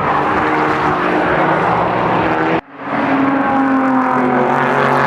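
Racing car engines running at high revs on a race track. The sound cuts off abruptly about halfway through, then another engine comes in holding a steady note that drifts slightly lower.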